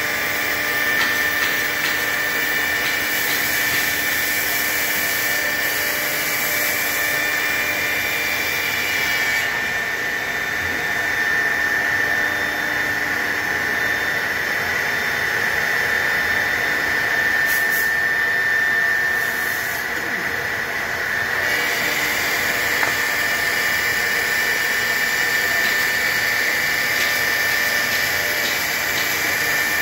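A 4 HP, 18,000 RPM spindle of a CNC router running as the head moves across a plastic sheet, most likely routing it. It gives a steady high whine over an even rushing noise, and the whine shifts slightly up or down in pitch a few times.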